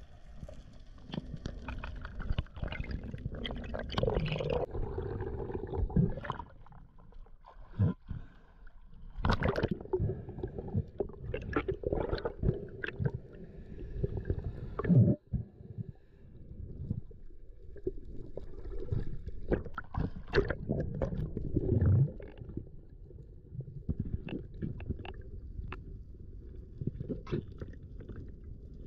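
Water heard through a camera's waterproof housing: irregular gurgling and sloshing with scattered sharp clicks.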